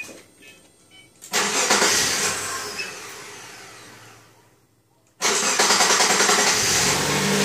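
About a second in, a sudden rush of noise fades away over a few seconds. Then, about five seconds in, the Subaru EZ30 flat-six engine is heard running steadily. Its accessory drive belt is off, so the alternator and its worn, humming bearing are not turning, and the whirring is gone.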